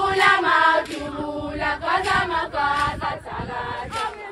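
A group of young women singing a traditional Zulu song together in chorus.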